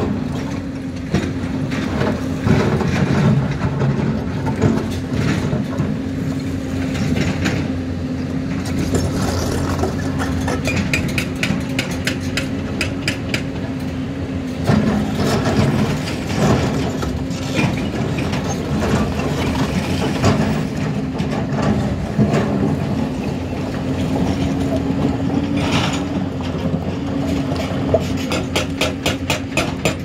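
Diesel engines of a Hyundai tracked excavator and a dump truck running steadily, with frequent metallic clanks and clattering of broken rock as the excavator digs and loads stone.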